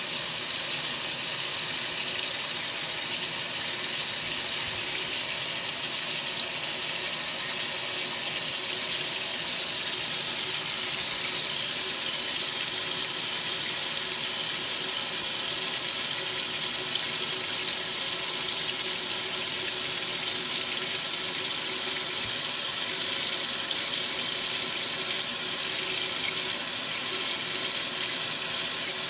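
Water running into the tub of a 1962 RCA Whirlpool LJA70 washing machine, a steady rush that does not change.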